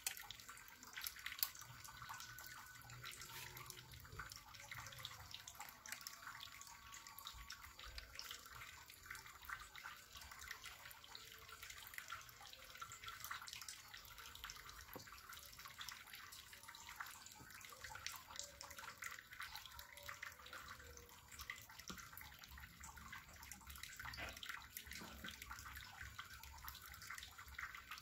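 Faint, steady crackling sizzle of waffle batter cooking on the preheated plates of an electric waffle maker, with many small ticks in the hiss.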